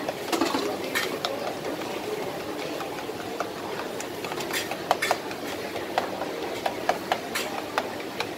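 Metal spoon stirring and breaking up dark jelly cubes in a plastic cup, with irregular clicks and taps of the spoon against the cup, over steady background noise.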